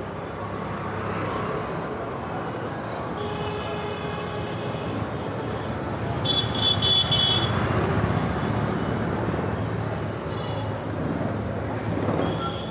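Street traffic with engines running and horns honking: one horn a few seconds in, a quick run of short toots around six to seven seconds, and a fainter honk later.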